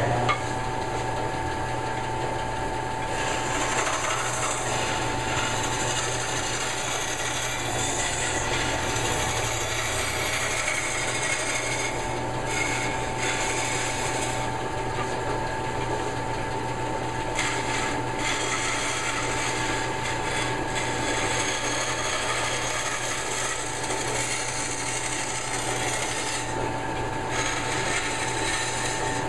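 Bandsaw running steadily, its blade cutting a small piece of wood fed by hand, with a constant hum under a hiss from the cut that swells and fades as the wood is pushed through.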